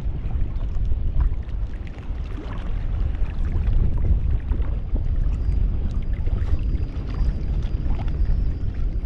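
Wind rumbling on the microphone over water sloshing, with scattered small splashes and knocks, while a tidal river channel is crossed.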